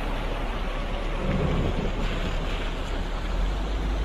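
Steady low rumble and road noise of a running motor vehicle.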